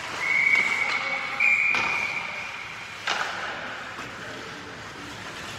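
Referee's whistle blown once for about two seconds, its pitch stepping up slightly partway through, stopping play. Two sharp knocks follow, the second about three seconds in.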